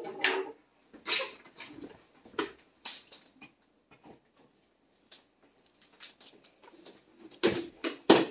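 Foil food-storage bags crinkling and rustling as they are handled, in scattered short bursts, the loudest two near the end.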